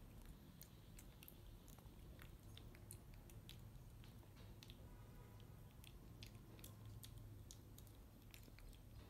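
Faint, quick clicks and smacks of a baby monkey chewing and biting into a banana, over a low steady hum.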